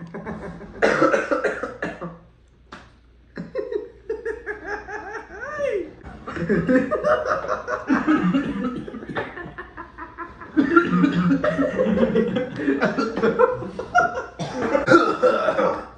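A young man laughing hard in repeated bursts, breaking into coughs among the laughter.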